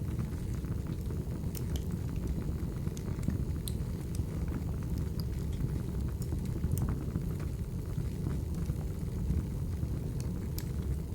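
Wood fire burning in a fireplace: a steady low rumble with scattered sharp crackles and pops.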